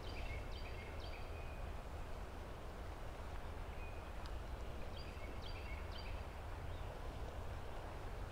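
A bird sings a short phrase of clear, stepped notes, once at the start and again about four seconds in, over a steady low rumble.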